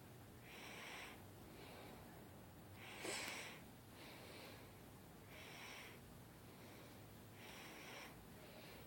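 A person breathing heavily and faintly: about four noisy breaths some two to three seconds apart, with softer ones between, the sharpest about three seconds in. The uploader puts the heavy breathing down to trouble with their lungs.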